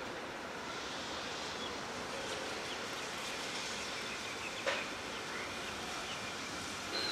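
Steady outdoor background noise with a few short bird chirps and a single sharp click about two-thirds of the way through.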